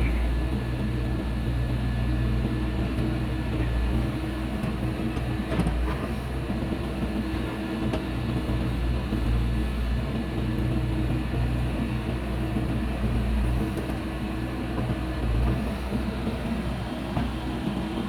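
Diesel engine of heavy earth-moving machinery running steadily, a low even drone with no marked changes in speed.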